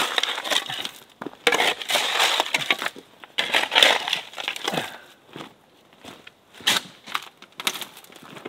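Spade digging and scraping into soil, shovelling dirt back around a log post set in a hole, in three long scoops, followed by a few short knocks.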